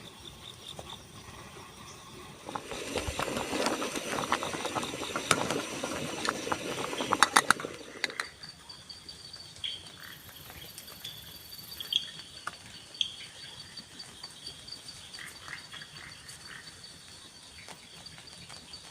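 Forest frogs and insects calling, with a steady high insect trill and scattered chirps. For a few seconds in the middle, louder rustling ends in a quick run of sharp clicks.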